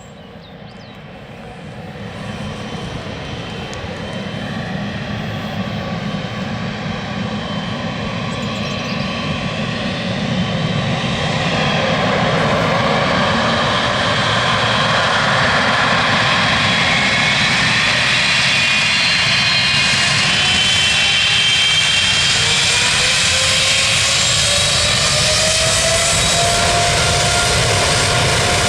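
Boeing 777F freighter's twin GE90 jet engines at takeoff power as the aircraft departs, a steady jet noise building over the first dozen seconds and then staying loud, with whining tones rising in pitch near the end.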